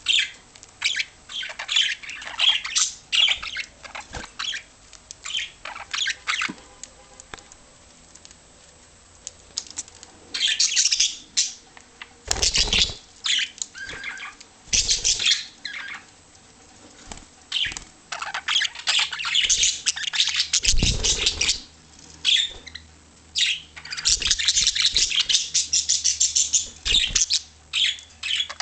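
Pet budgerigars chattering, with bursts of rapid high chirps and squawks that come and go in clusters. Two brief low bursts break in, about twelve and twenty-one seconds in.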